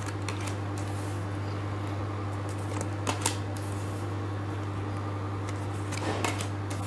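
Tarot cards being drawn from a deck and dealt onto a table: a few short card snaps and slides, the clearest about three seconds in and more near the end, over a steady low hum.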